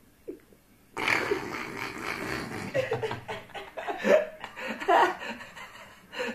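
A person on the verge of a sneeze that doesn't come, breaking into laughter instead: a sudden breathy burst about a second in, then broken, stuttering laughs with short voiced bursts.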